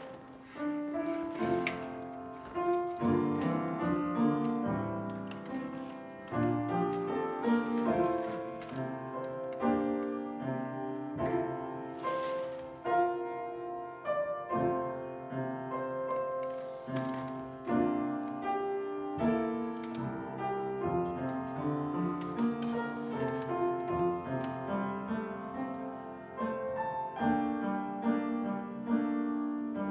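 Piano playing a slow prelude, sustained notes and chords.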